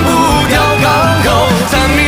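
Pop song playing: a sung melody over bass and full band accompaniment.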